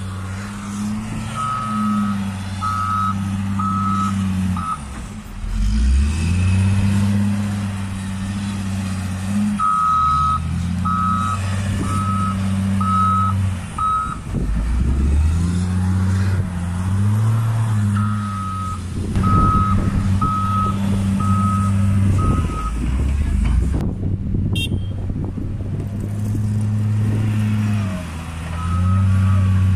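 Caterpillar 950H wheel loader working in snow: its diesel engine revs up and down as it shuttles back and forth, and its reversing alarm beeps in runs of four or five beeps each time it backs up. A stretch of rattling and knocking comes about two-thirds through.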